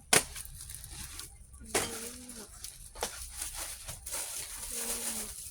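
A few sharp knocks and clacks of packages being handled, with short murmured voice sounds between them.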